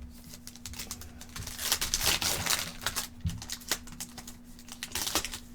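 Trading-card pack wrappers and cards being handled: scratchy crinkling and scraping with small clicks, busiest about two seconds in and again near the end, over a steady low hum.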